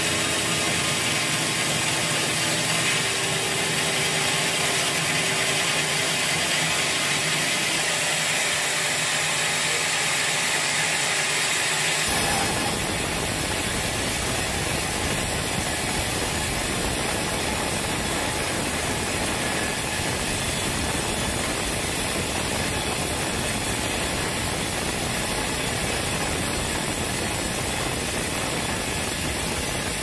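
Band sawmill running with its blade cutting lengthwise through a large teak log, a steady, dense machine noise. About twelve seconds in the sound changes abruptly, with a deeper rumble from then on.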